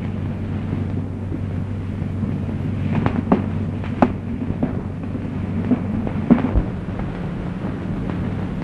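Steady low hum and hiss from an old optical film soundtrack, with about six sharp clicks and knocks scattered through the middle of the stretch.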